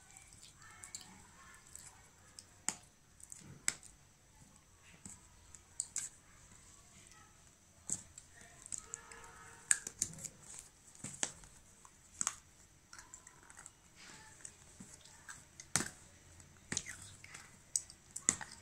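Fingers picking at and peeling the seal sticker off a sealed cardboard smartphone box: irregular small clicks, crackles and scratches of paper and card.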